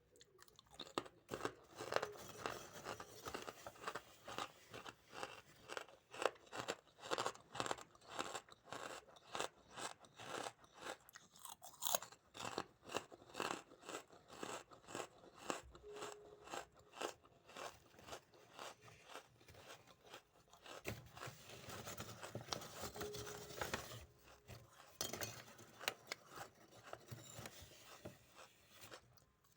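Close-miked chewing of something hard and crunchy, a crisp crackling crunch with each chew at about two a second, becoming denser and more continuous in the last third.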